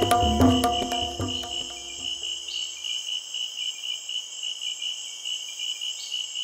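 Background music fades out over the first two seconds, leaving a night-time insect chorus: a high pulsing trill over a steady higher buzz.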